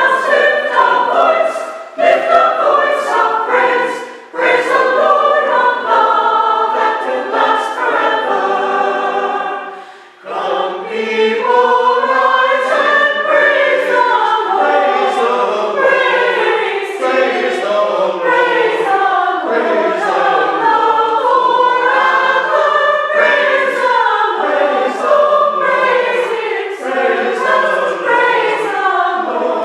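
Community choir singing together in rehearsal, with a brief break about ten seconds in before the voices come back in.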